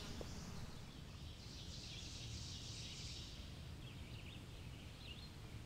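Faint woodland ambience: a steady low rumble with a soft high hiss in the first half, and a few small high bird chirps about four to five seconds in.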